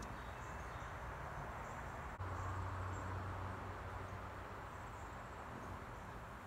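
Quiet outdoor ambience: a steady insect drone with a few faint high chirps. A low hum comes in about two seconds in.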